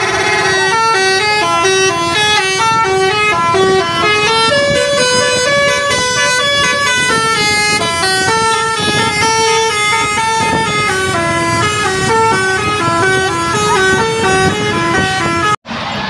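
Bus basuri musical air horn playing a tune as a run of held horn notes stepping up and down in pitch. It cuts off suddenly near the end.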